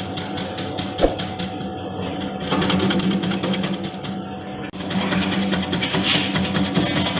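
Electric palm sugar chopping machine running: a steady motor hum under a rapid, even clatter from the cutting mechanism.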